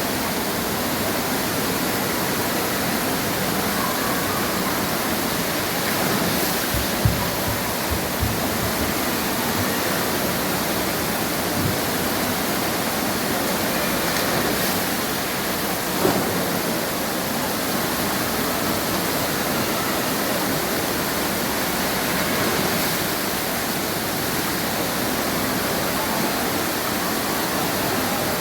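Water pouring and splashing steadily from a cascade of automatically tipping buckets, an even rushing sound, with a few brief low thuds, the clearest about seven seconds in and another about sixteen seconds in.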